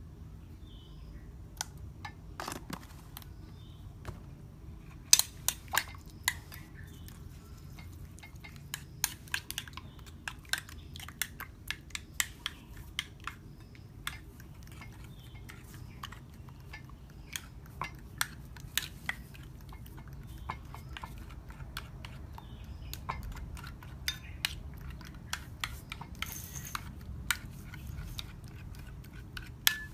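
Kitchen utensils and cookware clicking and tapping irregularly during food preparation, over a steady low hum.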